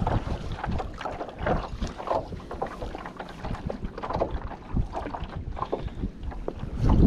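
Wind buffeting the microphone on a kayak, with irregular small knocks and water slaps against the hull.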